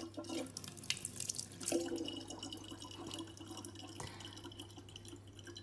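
A thin stream of water running faintly from a tap into the neck of a plastic water bottle, with a few small drips and splashes scattered through it.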